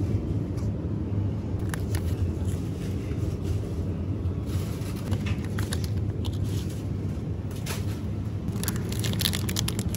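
Steady low hum of a supermarket, with crinkles and clicks of plastic-wrapped food packs being handled, most of them near the end.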